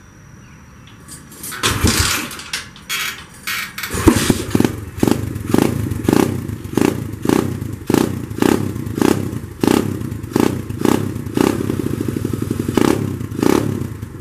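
SSR pit bike's single-cylinder engine being started, catching about four seconds in and then running with a regular pulsing surge a little under twice a second. The engine is missing, which the owner puts down to a dirty carburettor jet.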